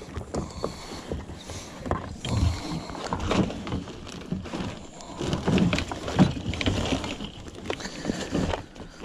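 Irregular knocks, clicks and rustles of handling in a boat while a hook is worked out of a smallmouth bass's jaw.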